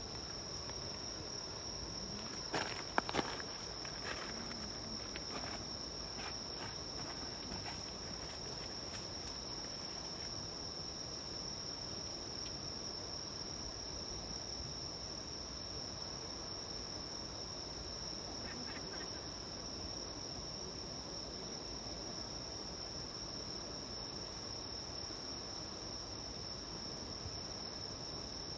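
Insects trilling in one steady, unbroken high tone, typical of a late-summer night insect chorus. A small wood campfire crackles with a few sharp snaps in the first several seconds and once more past the middle.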